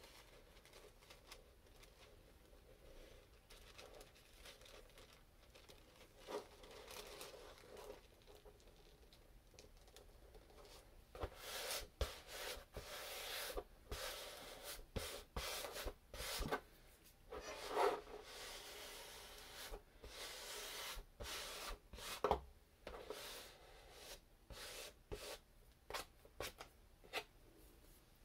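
Tissue paper rustling and crinkling as hands smooth it flat onto a glued board: soft, irregular bursts of rubbing that become busier about halfway through.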